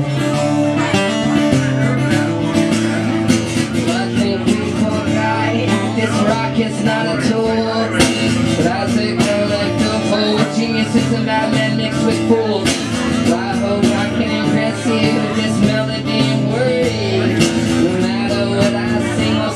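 Acoustic guitar strummed steadily: an instrumental passage of a live solo song.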